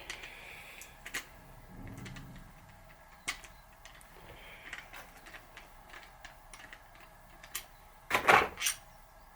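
Sparse light clicks and taps of metal tools and parts being handled on a workbench, with a louder cluster of knocks about eight seconds in.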